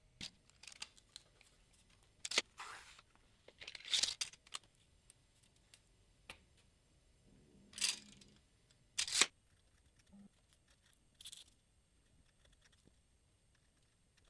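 Sporadic handling noises: small clicks and several short scraping or rustling swishes a second or more apart, from hands working with a linear scale, a tape measure and paper.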